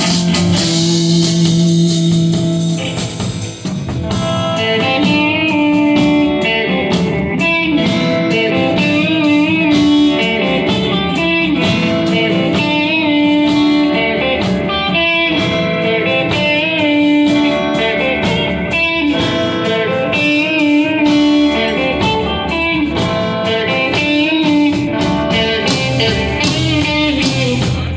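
A live band playing a guitar instrumental: an electric guitar carries the melody in held notes with vibrato over bass and drums.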